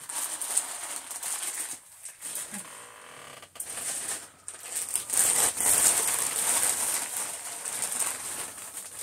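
Dry rice being poured and scattered onto the floor as test mess, the grains pattering in scattered ticks, then a denser, louder rush of grains about five seconds in.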